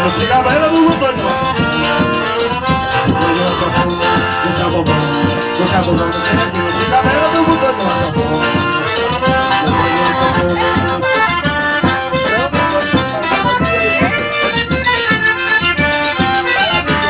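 Live instrumental passage by a trio: an accordion playing the melody over a steady percussion rhythm.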